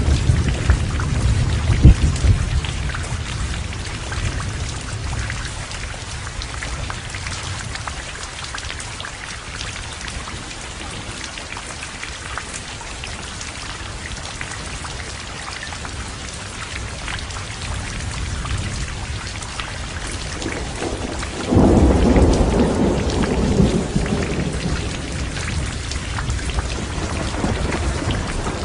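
Heavy rain falling steadily, with thunder: a low rumble fading over the first few seconds, then a sudden loud thunderclap about three quarters of the way through that rolls away over several seconds.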